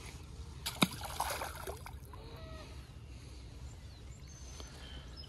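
A caught crappie being handled and released into the water: a sharp click about a second in, then a brief splash, over quiet lakeside ambience with a few faint bird calls.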